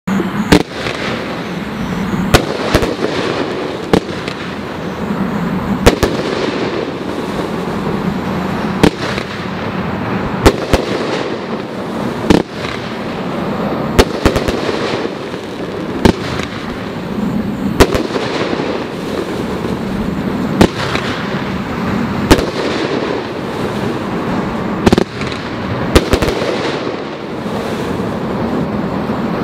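T-Sky 'Follow Your Dream' 20-shot 500 gram firework cake firing its shots one after another, with a sharp bang every second or two. A continuous crackle from the bursting effects fills the gaps between the shots.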